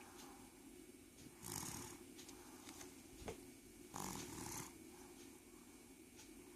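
Soft snoring: two breathy snores about two and a half seconds apart.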